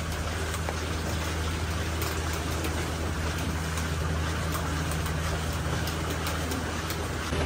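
Parlour milking machines running on the cows: a steady low hum with an even hiss over it and faint scattered clicks.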